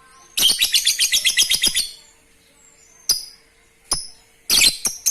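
Lovebird giving its long chattering call (ngekek): a fast run of high, shrill chirps at about eight a second lasting about a second and a half, then two single chirps, and a second fast run starting near the end.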